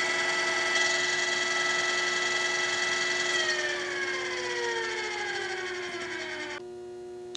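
OOYA radial arm drill press's geared spindle head running in reverse at 325 RPM with a steady gear whine. About three seconds in, the whine begins to fall in pitch as the spindle winds down, and it stops suddenly near the end, leaving a steady electrical hum.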